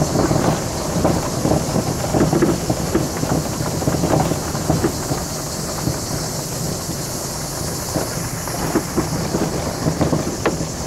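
Heard from inside a Citroën Saxo on a gravel track: the engine's steady hum under the crunch and popping of tyres on loose stones, with many short knocks and rattles. The knocks thin out in the second half as the surface turns to packed dirt.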